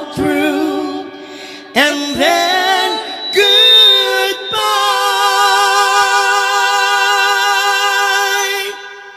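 Two singers singing a ballad duet live through microphones with band backing: a few short phrases, then one long held note with vibrato for about four seconds, which stops shortly before the end.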